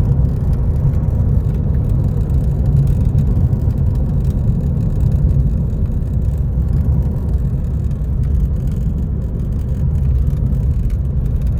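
Car driving along, with a steady low rumble of engine and road noise.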